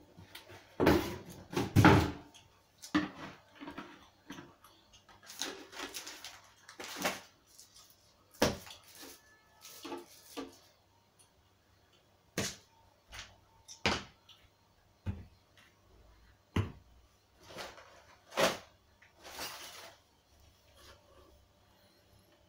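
Cardboard box being handled and supplement tubs, bottles and boxes set down one by one on a tiled floor: a string of separate knocks and thuds with cardboard rustling between them, loudest in the first couple of seconds.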